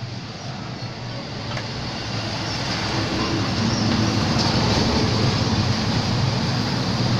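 A motor vehicle running: a steady rumble with hiss that slowly grows louder.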